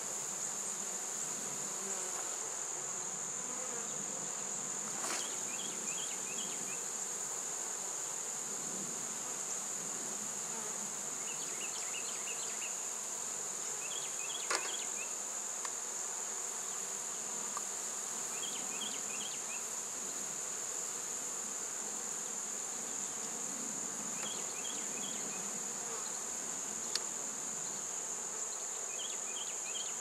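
Honeybees of a large, opened wall colony buzzing steadily, under a constant high-pitched whine. Short bursts of faint high chirping come every few seconds, and there are a few light clicks.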